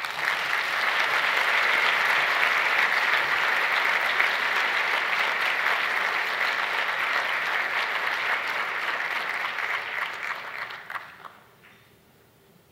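Audience applauding, starting at once and holding steady, then dying away about eleven seconds in.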